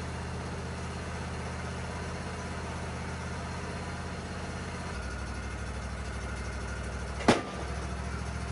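Portable bandsaw sawmill's engine idling steadily while no cut is being made. Its note changes about five seconds in, and a single sharp knock about seven seconds in is the loudest sound.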